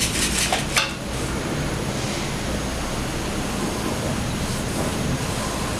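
Steady background hiss, with a few light clicks and taps in the first second as a paintbrush is worked in a plastic paint tray.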